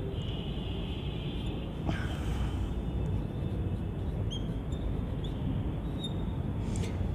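Steady low background rumble with a few faint, short high squeaks and ticks.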